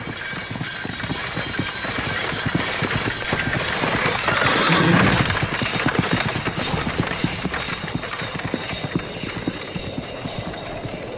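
Noise inside a moving car: road and engine noise with a dense, irregular rapid clicking rattle, and a swell of noise about four to five seconds in as another car passes.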